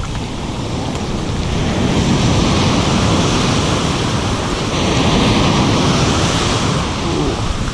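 Ocean surf breaking close by and washing up the sand in a rushing hiss, swelling to its loudest as a wave crashes about five to six seconds in.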